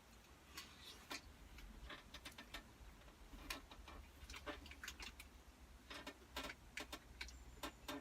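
Faint, irregular clicks and taps of eating: cutlery tapping and scraping against a takeaway food container, over a low hum.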